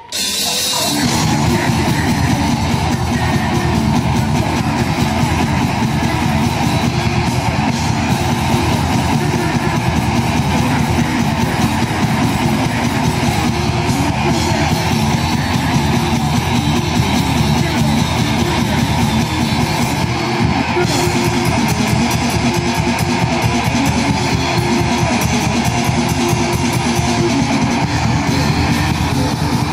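Black metal band playing live at full volume: distorted electric guitars, bass guitar and drums in a dense, steady wall of sound. The whole band comes crashing back in together right at the start.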